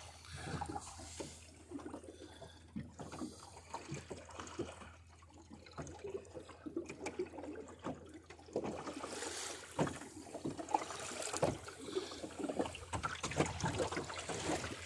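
Water splashing and trickling around a small sailboat, with irregular small knocks and splashes that grow busier in the second half.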